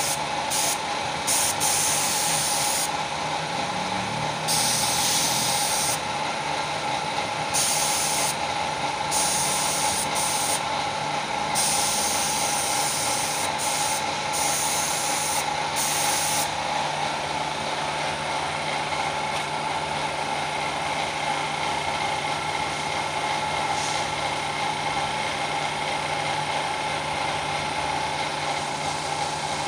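Compressed-air spray gun hissing in on-and-off bursts of one to three seconds over a steady machine hum, as primer or paint is sprayed. The bursts stop about halfway through, leaving the hum.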